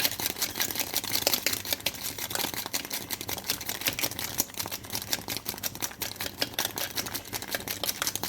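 Pot of soup boiling, a dense irregular crackle of small popping bubbles.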